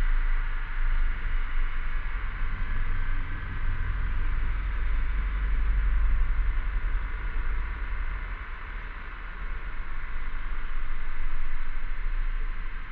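Cicadas droning steadily in a chorus, with a low rumble underneath that swells and fades.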